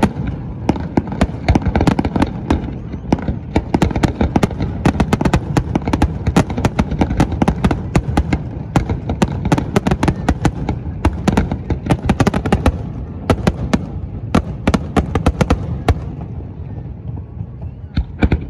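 Aerial fireworks display: a dense, rapid run of shell bursts and crackling reports over a low rumble, which thins out near the end, where two last sharp bangs ring out.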